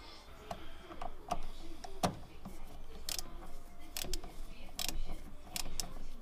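Irregular sharp clicks and small taps, about one a second, from hands working wiring and small parts in a car's engine bay. A few of them come with a short hissy scrape.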